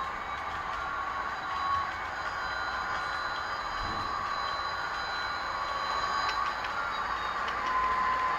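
Model Amtrak SDP40F locomotive running, its Soundtraxx Tsunami 2 sound decoder playing diesel locomotive sounds, with steady running noise from the train.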